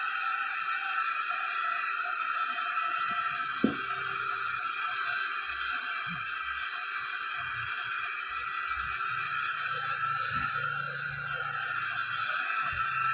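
Steady hiss with one sharp click a little over three and a half seconds in.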